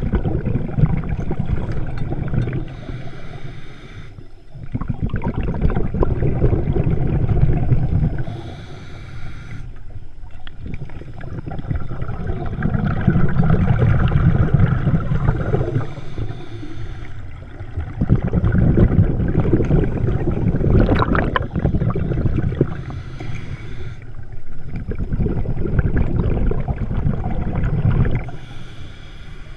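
Scuba diver breathing underwater through a regulator: long low rumbles of exhaled bubbles alternating with short hissing inhales, repeating about every six to seven seconds.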